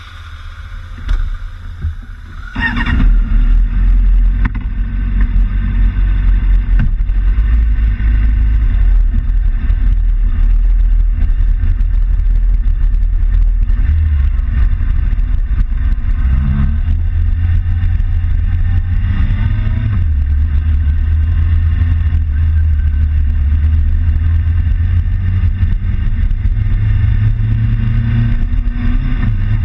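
Motorcycle engine running, then opening up about three seconds in as the bike pulls away and rides slowly, the engine note stepping up and down a few times with gear changes, under a steady rumble of wind on the camera microphone.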